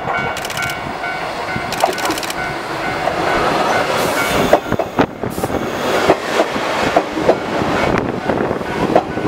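Fukushima Kōtsū 7000-series stainless-steel electric train rolling past close by at low speed as it pulls into the station, its wheels knocking irregularly over the rail joints as the cars go by.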